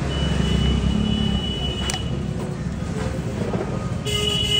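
Steady low rumble of a running motor vehicle, with a thin high whistle over it for the first two seconds and again near the end, and a single click about two seconds in.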